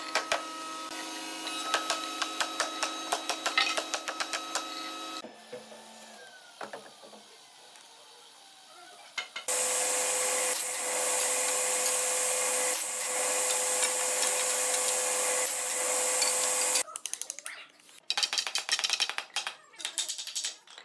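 Hammer tapping on a wooden frame in rapid strokes, then a table saw cutting timber with a loud steady noise for about seven seconds, then more quick hammer taps on wood near the end.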